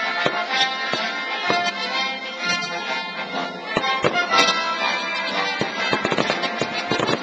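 Orchestral music playing while fireworks go off over it. Scattered sharp bangs come thicker near the end.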